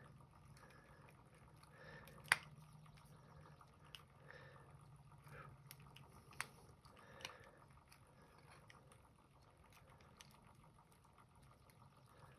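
Near silence with a few faint sharp clicks, the strongest about two seconds in, from a screwdriver straining against a very tight screw in a new pin tumbler lock. A faint steady low hum lies underneath.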